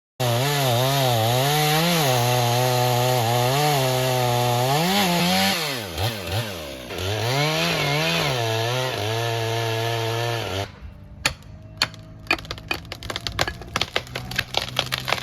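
Chainsaw cutting into a Norway spruce, its engine pitch rising and dipping under load; it stops about ten and a half seconds in. It is followed by a run of sharp cracks and snaps that come faster and faster.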